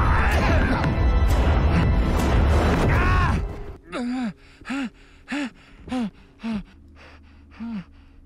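A film soundtrack: a loud, dense rumbling noise for about the first three and a half seconds, then a spacesuited man gasping for breath in short, evenly spaced gasps over a low steady musical drone.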